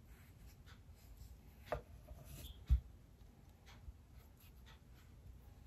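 Kitchen knife peeling the skin off a ripe papaya half: faint, short scraping strokes, with a click about a second and a half in and a low thump a second later.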